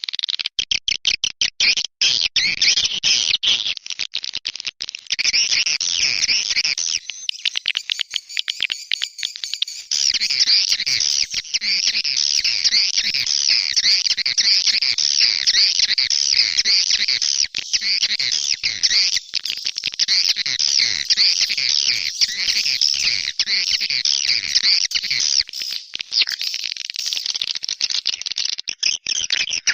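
Swiftlet lure call: a dense, high-pitched chattering twitter of edible-nest swiftlets, laced with fast clicks. It thins out for a few seconds about a quarter of the way in, then resumes just as thick.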